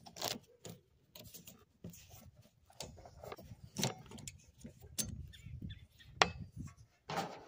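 Windshield wiper arm and blade being handled: irregular sharp plastic-and-metal clicks with light rubbing and scraping.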